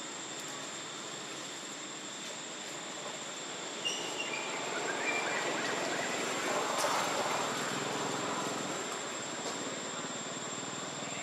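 Forest ambience: a steady high-pitched whine, a few faint short chirps about four to five seconds in, and a swell of rushing noise around seven seconds in that then fades back.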